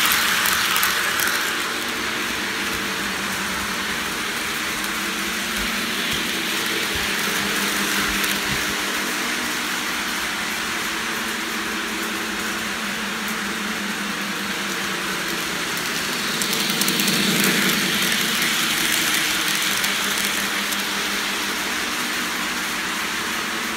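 Model steam locomotive running around a train layout: a steady motor hum with wheels rolling on the track, growing louder twice as the train comes round nearby.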